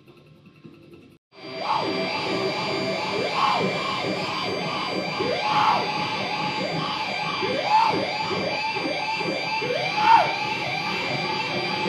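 A man's voice yelping into a handheld microphone through amplification, in quick repeated swooping cries that bend up and down about twice a second, over a steady harsh noise drone with fixed high tones. It cuts in suddenly after a second or so of near quiet; the loudest cries come about halfway and near the end.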